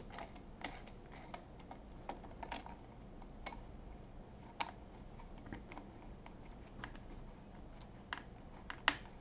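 Irregular light clicks and ticks of a 3 mm Allen key and a small metal bracket knocking together as a spacer screw is turned. There are a couple of sharper clicks near the end.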